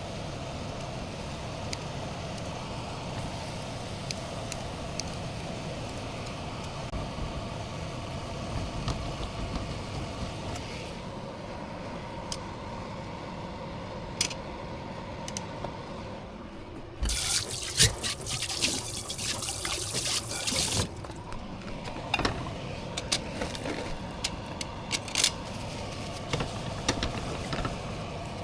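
Kitchen tap running in a loud hissing stream for about four seconds, two-thirds of the way in, over a steady hum, with scattered clicks and knocks before and after.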